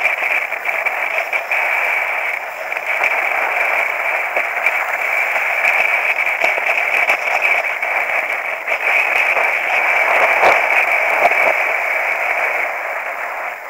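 Steady rushing noise of skiing downhill, wind and skis sliding on snow, heard muffled through a helmet-mounted action camera. A brief knock about ten seconds in.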